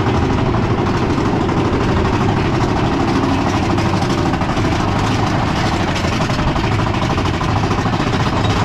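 Big Thunder Mountain Railroad mine-train roller coaster running along its track, a steady loud rumble and rattle of the cars heard from a rider's seat.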